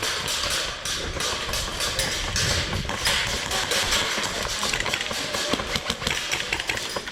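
Airsoft guns firing in rapid bursts: a dense, irregular run of sharp clicks and cracks.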